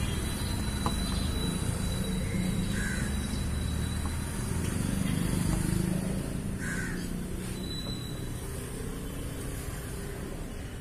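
Crow cawing twice, a few seconds apart, over a steady low rumble that swells about halfway through.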